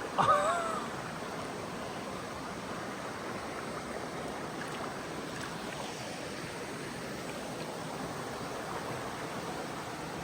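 Mountain creek water running steadily over rocks in a canyon, a continuous rush. A brief voice sounds right at the start.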